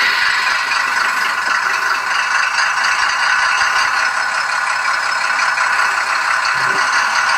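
Diesel engine sound of a DR V 15 shunting locomotive, played by a Doehler & Haass SD22A sound decoder through a tiny speaker in a model locomotive, running steadily with a rattling, thin sound as the locomotive drives slowly.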